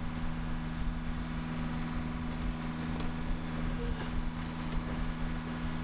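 Wind buffeting the microphone on a sailboat under way, a gusty rumble over the rush of the boat, with a steady low hum underneath.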